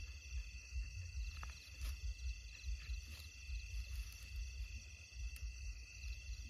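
A chorus of night insects: several steady, high-pitched trills sounding together, over a low rumble.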